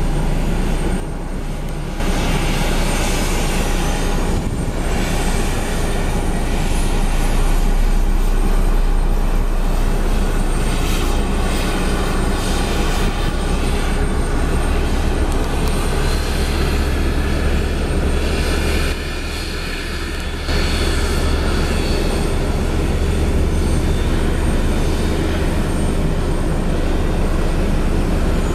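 Turbofan jet engines of an Airbus A320 running on the ground with a steady low rumble, a thin high whine rising over several seconds as an engine spools up during pushback. The sound drops briefly twice.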